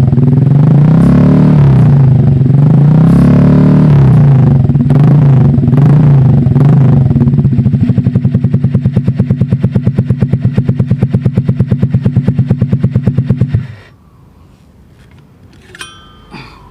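Honda Click scooter's single-cylinder engine blipped through an SC Project exhaust with no silencer fitted, pitch rising and falling, then settling to a steady pulsing idle. The engine is switched off about 14 seconds in, and a few faint clicks follow.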